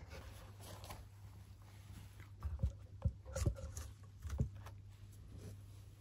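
Handling noise of a phone camera being moved by hand: rubbing and rustling, with a handful of dull knocks in the middle.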